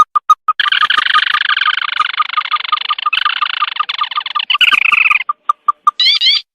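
Bird lure-call recording of the sintar mata merah (lantung): a fast series of short, single-pitched notes, about six a second, gives way to a dense, buzzing trill lasting several seconds, then a few rising upswept notes near the end.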